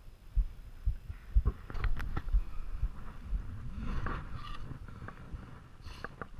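Irregular low thumps and crunching of a roped climber's boots and ice axe working in snow, with a few sharp clicks.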